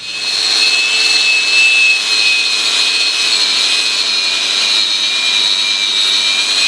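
Angle grinder with a thin knotted wire wheel scouring rust off a steel boat hull down to bright steel. It is a steady high whine with a scratchy hiss, starting at once and holding even throughout.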